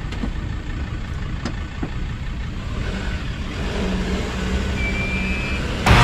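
Four-wheel-drive engine running under load, the revs building over the second half, as a stuck ute is pulled out of the creek on a recovery strap.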